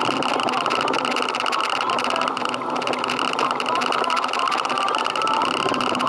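An engine running steadily, with an even, unchanging hum.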